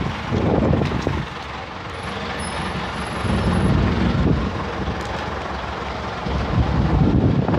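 Wind buffeting the microphone in uneven gusts of low rumble, over the steady noise of vehicles running nearby.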